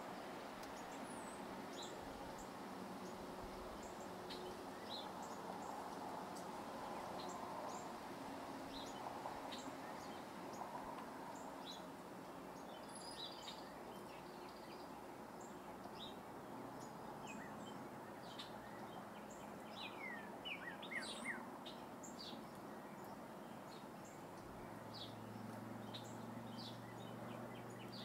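Outdoor ambience with a steady background noise and scattered short bird chirps and calls throughout, including a quick run of falling chirps about twenty seconds in. A low steady hum comes in near the end.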